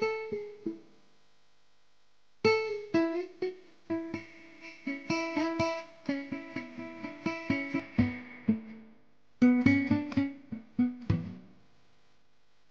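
Instrumental background music of plucked guitar notes, played as separate decaying notes. It breaks off into silence for about a second and a half shortly after the start and again near the end.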